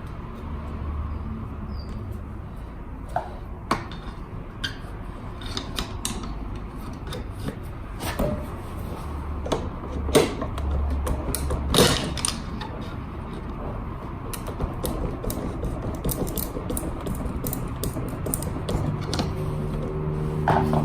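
Hand tools and metal parts of a scooter's rear wheel assembly clicking, knocking and creaking while it is worked on, with a few sharper knocks about four, ten and twelve seconds in.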